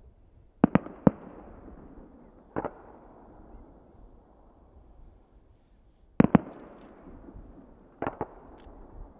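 Aerial firework shells bursting in the sky: sharp bangs in four clusters, about eight in all, each cluster followed by a rolling echo that dies away.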